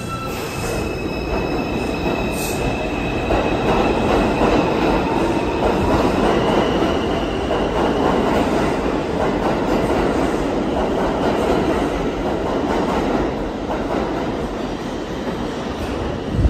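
An R142-series New York City Subway train pulls out and accelerates away. A steady electric propulsion whine steps up in pitch a few seconds in, over a rumble of wheels on rail that swells as the cars pass and eases off near the end. A sharp loud knock comes right at the end.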